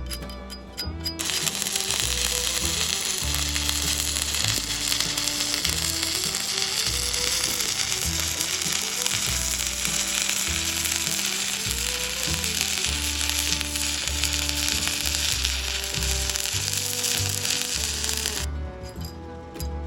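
Stick welding arc burning steadily as a weld bead is run, an even frying hiss that starts about a second in and stops shortly before the end. Background music plays underneath.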